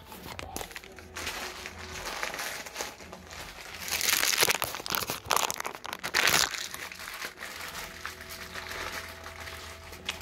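Rustling and crackling handling noise as the phone is moved about and rubbed against hand or clothing, loudest from about four to six and a half seconds in.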